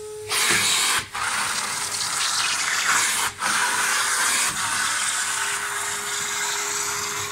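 Vacuum cleaner sucking along the carpet edge and corners through a crevice-tool wand: a loud, steady rush of air that starts suddenly a moment in and dips briefly twice, with a steady motor tone under it near the end.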